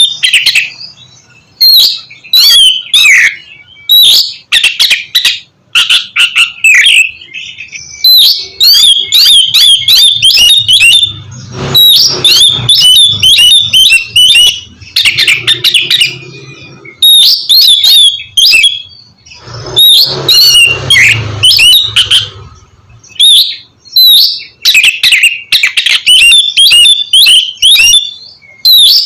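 Oriental magpie-robin (kacer) singing loudly in rapid phrases of gliding whistles and quick chattering notes, broken every few seconds by short pauses.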